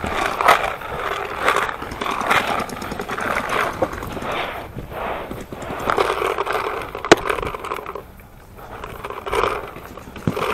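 Paintball markers firing during a point, with paintballs smacking around an inflatable bunker and handling and wind noise on the head-mounted camera; one sharp crack about seven seconds in is the loudest sound.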